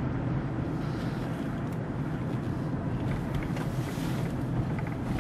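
Steady low rumble of engine and tyres heard from inside a moving vehicle's cabin.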